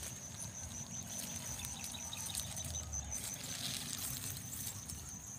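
Rice plants rustling as a hand brushes through the leaves and handles the ripening panicles.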